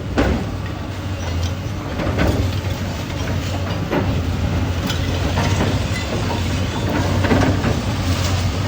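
Heavy machinery engine running steadily, with irregular metallic clanks and knocks.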